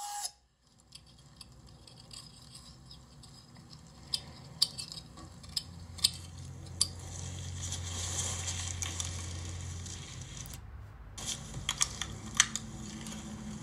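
Scattered sharp clicks and ticks, bunched in two groups, over a faint hiss and a low hum that swells and then drops out briefly near the end.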